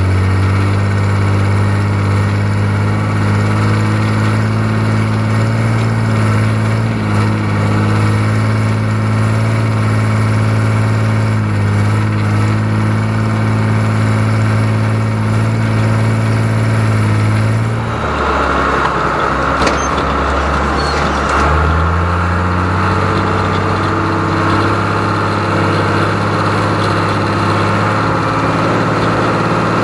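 John Deere 3130 LS tractor's six-cylinder diesel engine running steadily. About two-thirds of the way through, the engine speed drops for a few seconds and then climbs back up, and a steady higher whine joins the engine sound from the drop onward.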